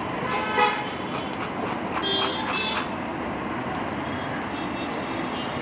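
Steady busy street traffic noise, with two short pitched sounds over it, about half a second in and again around two seconds in.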